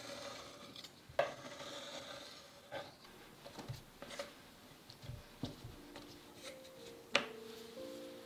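Small knocks, ticks and scraping of sugarcraft tools on a silicone work mat as fondant is cut with a knife along a steel ruler and then pressed with a plastic quilting embosser. The sharpest knocks come about a second in and near the end.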